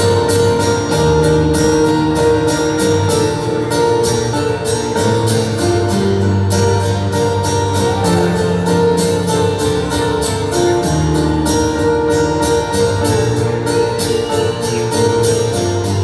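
Live amplified acoustic guitar strummed in an even rhythm, about four strums a second, over sustained keyboard chords: an instrumental passage with no singing.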